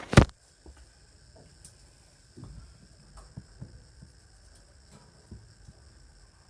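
A sharp, loud click just after the start, then faint scattered light taps and handling noises over a steady faint high hiss.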